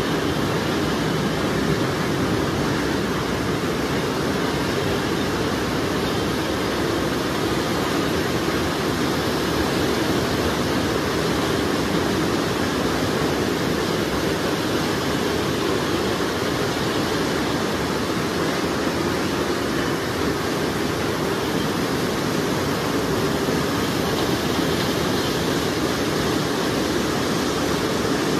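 A long rake of empty sugarcane bins rolling slowly along the cane tramway, a steady even noise with no distinct clanks or squeals.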